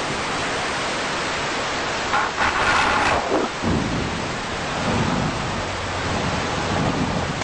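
Dense rushing noise from an electronic noise soundtrack, swelling brighter about two to three seconds in, then a few lower whooshing surges that sweep downward.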